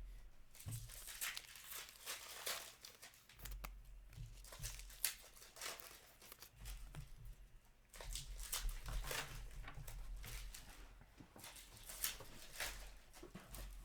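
Hockey card pack wrappers being torn open and crinkled by hand, in irregular crackles and rustles.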